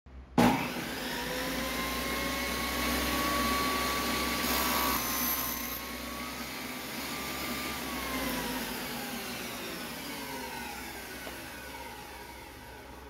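Table saw switched on with a sudden start and running, ripping a thin strip of wood about four to six seconds in, then switched off, its whine falling in pitch as the blade winds down.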